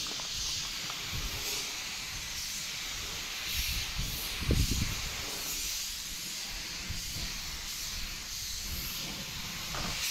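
Compressed-air paint spray gun spraying paint onto a truck cab: a steady high hiss of air and atomised paint. A brief low rumble sounds about halfway through.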